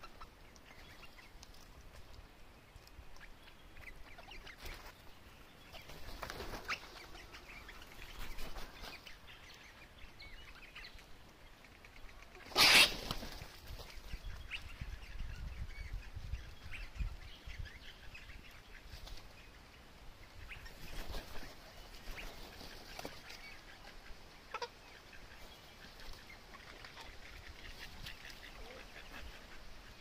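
White cockatoos calling with scattered harsh screeches, one much louder screech about halfway through, lasting about half a second.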